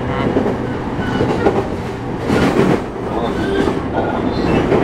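E231-series electric commuter train running, heard from inside the passenger car: steady rumble and wheel clatter over the rails, with a louder rush about halfway through.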